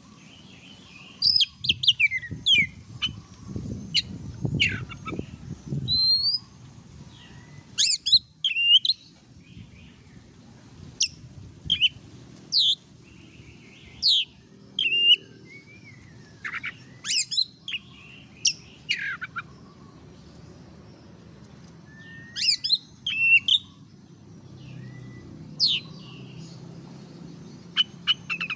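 Oriental magpie-robin singing: loud, sharp whistled notes and quick rising and falling sweeps, in irregular bursts with short pauses between.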